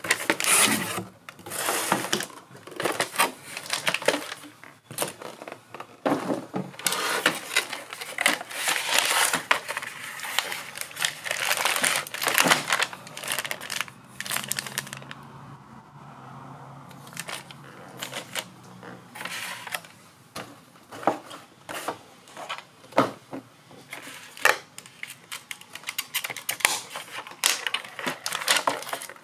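Cardboard box inserts and a plastic bag rustling, crinkling and scraping in irregular bursts as they are handled and pulled apart.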